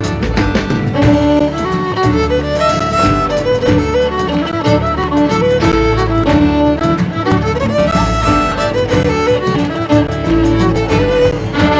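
A live folk band plays a brisk set of Scottish traditional tunes, with the fiddle leading the melody over a steady beat.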